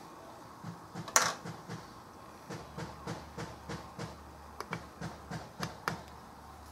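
Small plastic oil bottle and cap being handled and opened: a sharp click about a second in, then a run of light clicks, about three a second.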